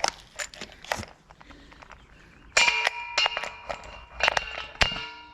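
Metal clanking on a steel air compressor as a wheel is fitted: a few light knocks, then about four harder strikes from about halfway in, each leaving a metallic ringing that hangs on.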